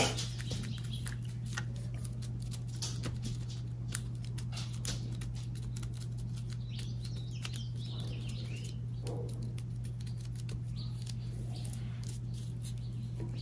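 Hands pressing and rubbing a painted leaf flat onto paper to make a leaf print: soft rustling and scratching of paper and leaf, with scattered small ticks, over a steady low hum.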